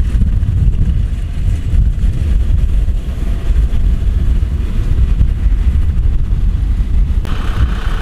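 Kubota DC-70 combine harvester's diesel engine running steadily as it cuts rice, with wind rumbling on the microphone. About seven seconds in, the sound cuts to a tractor engine.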